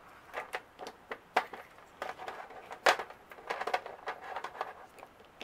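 Cured resin rune stones clicking and clattering against one another as they are handled and set down: a run of irregular light clicks, the sharpest about halfway through.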